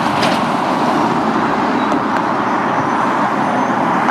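Road traffic passing close by: a steady rush of tyres and engines from cars and a pickup truck going past.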